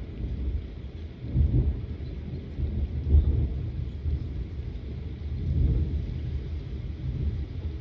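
Thunder rolling in a thunderstorm, a low rumble that swells and fades several times and is loudest about three seconds in, over a faint hiss of rain.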